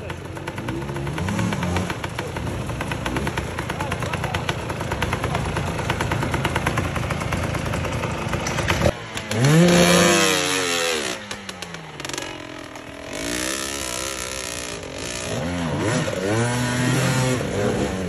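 Enduro dirt bike engines revving in bursts as the riders try to drive their bikes out of deep mud. The loudest rev, rising and then falling, comes about halfway through, and more revs follow near the end.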